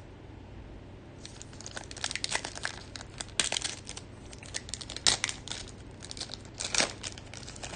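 Foil wrapper of an NBA Hoops Premium Stock trading-card pack crinkling and tearing as it is ripped open by hand. It comes as an irregular string of sharp crackles starting about a second in, with the loudest rips a little past the middle and near the end.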